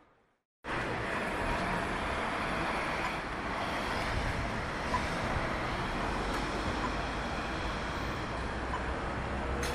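City street ambience: a steady wash of traffic noise with a low rumble, starting abruptly about half a second in after a moment of silence.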